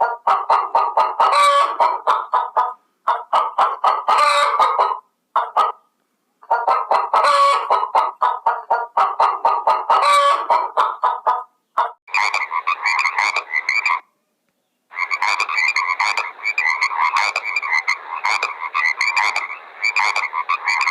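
Frogs croaking in rapid pulsed trains of calls, broken by several short gaps. The calls change to a higher, more ringing tone about halfway through.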